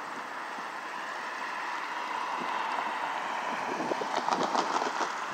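A car drives up and across a railroad grade crossing: a rising hiss of tyres on the road, then a quick clatter of knocks as the tyres run over the rails about four seconds in.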